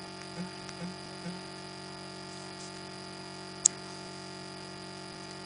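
Key presses while typing on a touchscreen phone's on-screen keyboard: soft taps about two a second that stop after the first second or so, then one sharp click about three and a half seconds in, over a steady electrical hum.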